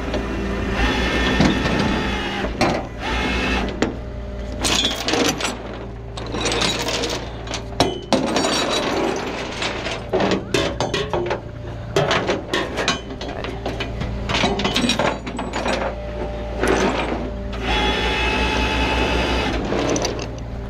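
Tow chains and hooks clanking and rattling against metal as they are hooked under a burned-out car, over the steady hum of a tow truck's engine running.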